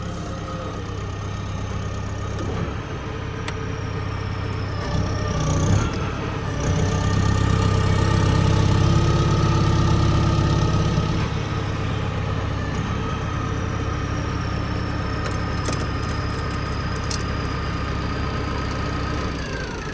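Forklift engine running, with a thin high whine over it; about six seconds in it revs up and runs harder for about five seconds, then drops back to a steady run.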